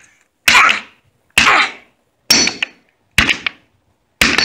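Claw hammer striking thin wooden boards on a concrete floor: five sharp blows, about one a second.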